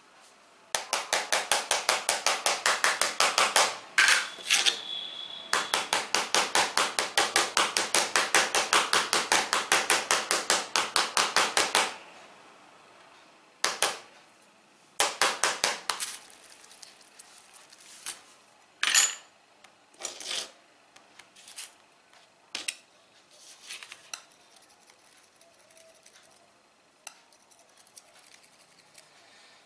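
A steel hex key worked rapidly against the Sony Xperia E4's Gorilla Glass 3 screen in a scratch test, making quick, even metal-on-glass strokes at about five a second in two runs that stop about twelve seconds in. A brief high ring comes near the break between the runs, and scattered lighter clicks and taps of metal on glass follow.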